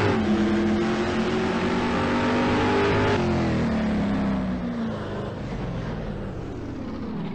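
Car engine held at high revs, then its pitch falls away about three seconds in as it winds down to a lower, quieter drone.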